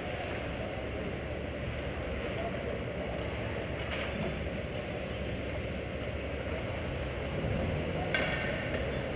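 Steady background noise of an indoor ice rink: an even low hum and hiss, with a short scrape about eight seconds in.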